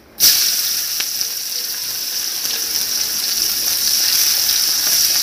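Chopped onion hitting hot oil in a kadai, sizzling loudly at once and then frying steadily while a spatula stirs it through. This is the start of the tempering: the onion going into oil with a bay leaf and a dried red chilli.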